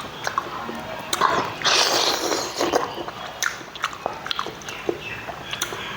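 A person eating rice up close: chewing and lip-smacking with many sharp mouth clicks, and a louder half-second of wet noise about two seconds in.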